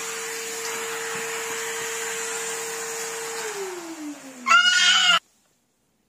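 Numatic Henry vacuum cleaner running steadily, then switched off about three and a half seconds in, its motor whine falling in pitch as it spins down. Near the end a brief, loud, high-pitched cry sounds over the spin-down before the sound cuts off abruptly.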